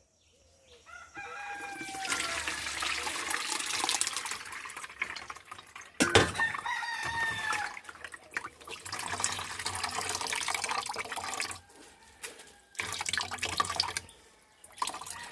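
Water splashing and trickling, with a rooster crowing twice in the background.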